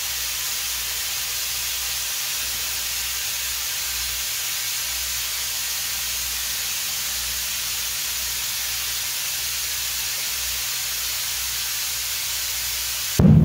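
Compressed air hissing steadily into an exercise ball through an air hose. Near the end the overinflated ball bursts with a sudden loud bang, and the hiss cuts off.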